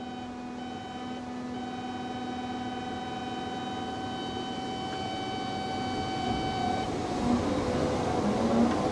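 Cat hydraulic excavator working a bucket of dirt, heard from inside the cab: a steady machine drone that slowly grows louder, with a high whine that stops about seven seconds in.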